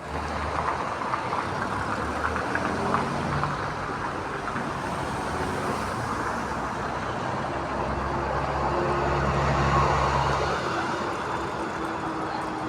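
Steady engine rumble with a low hum that swells a few seconds in and eases off near the end, over a wash of traffic-like outdoor noise.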